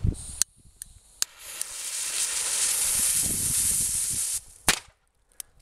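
A Nico Ninja cracker, a small China firecracker: after a few clicks its lit fuse hisses for about three seconds, then it goes off in one sharp, loud bang.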